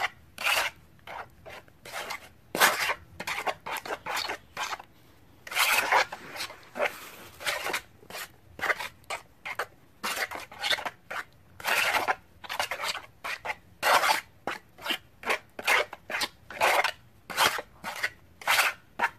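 Metal spoon scraping around a bowl while stirring glue, food colouring and baking soda into a paste. The strokes are uneven and come about twice a second.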